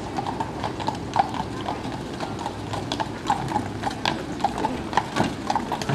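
Horse hooves clip-clopping in a steady run of sharp strikes, several a second.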